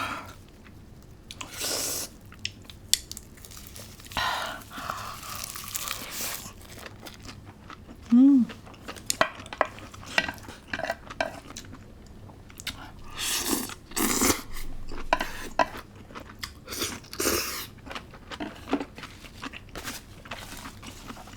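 Close-miked mukbang eating: crunchy chewing of spicy noodles with crisp old cucumber (nogak), with utensils clicking against the dish between bites. A brief pitched sound is heard about eight seconds in.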